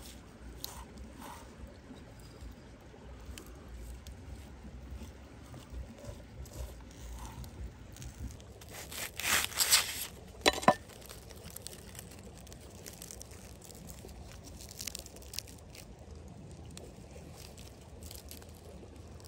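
A large cleaver-style knife cuts through a foil-wrapped packet on a wooden board, with a loud crinkle and crunch of foil about halfway through that ends in one sharp knock. After it comes softer, scattered crinkling as the foil is peeled open by hand.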